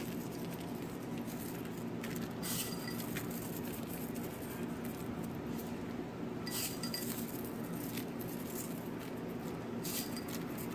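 Glass clinking lightly three times, a few seconds apart, each clink with a short ring, as a small glass bowl of fried shallots is handled over a glass baking dish while the shallots are sprinkled by hand. A steady low hum runs underneath.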